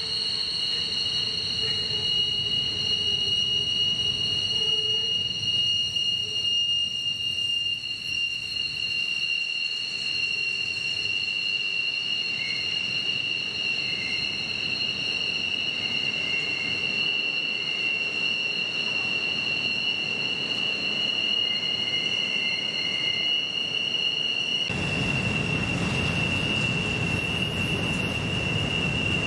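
Steel wheels of a Norfolk Southern freight train squealing steadily as the cars round a tight curve, a sustained high-pitched squeal over the low rumble of the rolling cars. About 25 s in, the upper squeal tone drops out and the rumble gets louder.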